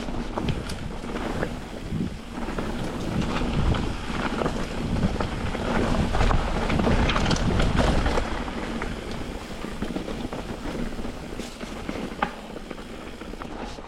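Mountain bike riding fast down a dirt and rock trail: tyres rolling over rough ground with frequent knocks and rattles from the bike, and wind rushing over the microphone. It is loudest in the middle, then eases off.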